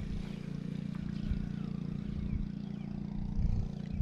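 An engine running steadily, a constant hum with uneven low rumbling beneath it that swells briefly near the end.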